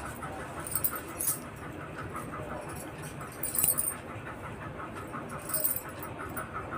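Bangles jingling in short bursts several times as the wearer's hands move, the loudest about three and a half and five and a half seconds in.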